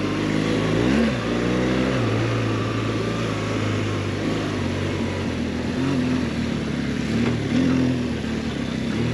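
BMW R 1200 GS boxer-twin engine pulling in low gear over rough ground. The throttle is blipped about a second in, the revs rising and falling quickly. It then runs at a steady pitch, with a few small throttle changes later on.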